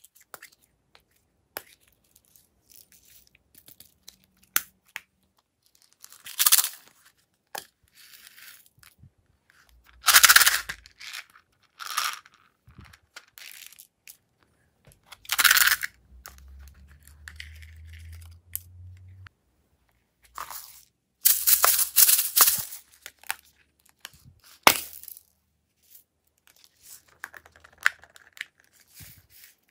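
Hands handling small plastic toy cases: scattered light clicks and taps as the cases are worked open, and several short, noisy bursts as contents such as plastic beads are tipped out onto the slime tray.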